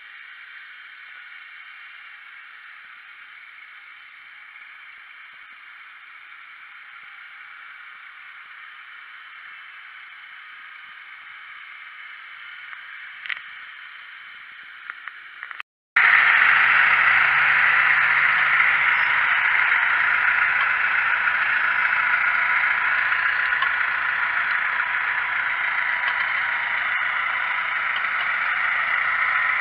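Massey Ferguson tractors working a field: first one pulling a disc cultivator, heard as a steady, thin, hissy drone. About halfway through, the sound cuts to a louder, closer tractor drawing a reversible plough through the soil.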